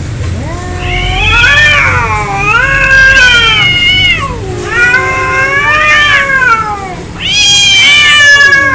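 Cats yowling in an angry standoff, long drawn-out calls that rise and fall in pitch, with a higher, louder yowl near the end.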